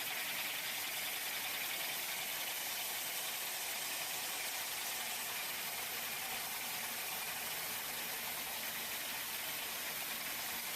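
Battery assembly-line machinery running steadily: an even, hiss-heavy machine hum with no distinct strokes, cutting in suddenly.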